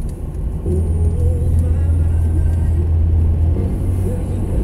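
Car engine and road noise heard from inside the cabin of a Toyota Corolla: a low drone that swells about a second in as the car picks up speed, and eases off a little near the end, with music playing faintly in the car.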